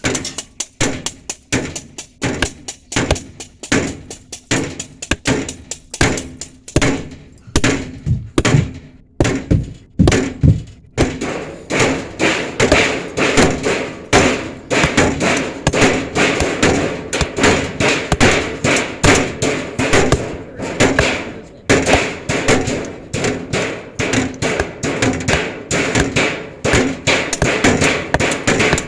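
Hammering: rapid, irregular knocks and thuds from several hammers at once, growing denser about eleven seconds in.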